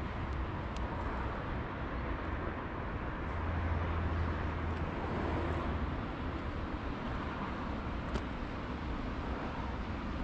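Steady outdoor background noise with a low rumble that swells about four seconds in and then eases, and a few faint ticks.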